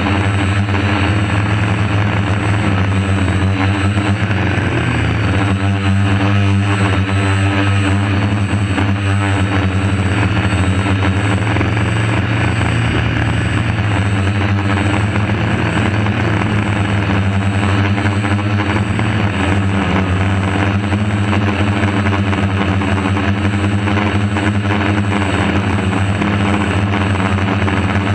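A DJI F450 quadcopter's four DJI 2212 brushless motors and propellers make a steady, loud whir and buzz as it hovers. The sound is picked up by the camera mounted on the drone's own frame, so the rotor noise fills the sound.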